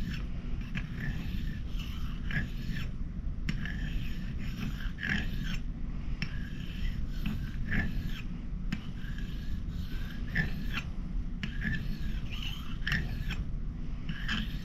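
Steel edge being honed on a fine sharpening stone: rhythmic scraping strokes back and forth, broken by short pauses every few seconds.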